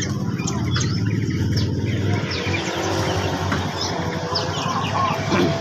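Many small caged songbirds chirping and calling at once, short scattered chirps and quick whistled notes overlapping, over a steady low rumble.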